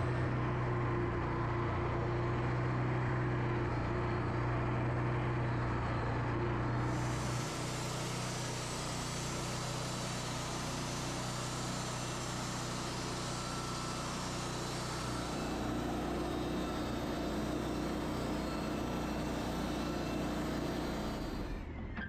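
Wood-Mizer portable band sawmill running steadily, its engine humming while the band blade cuts lengthwise through a white oak log.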